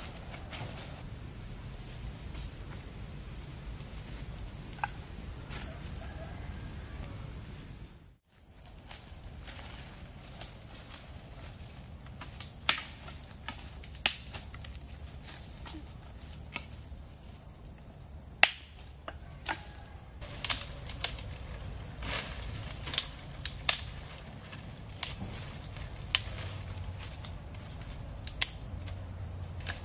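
Steady high-pitched drone of forest insects, briefly cutting out about eight seconds in. Through the second half, scattered sharp snaps and cracks of sticks and twigs being struck and broken in the undergrowth.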